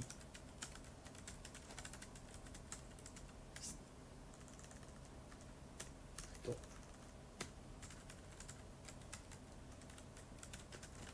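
Faint, irregular clicks of typing on an iPad, quick runs of keystrokes broken by short pauses, busiest in the first few seconds.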